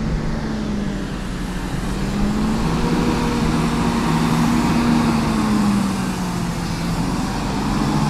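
City bus engine running as the bus moves slowly along the road: a steady low hum that drifts gently up and down in pitch, over road traffic noise.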